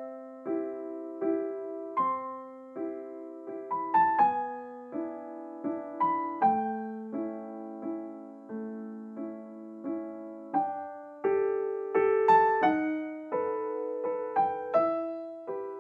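Background piano music: a slow run of single notes and chords, each struck and fading.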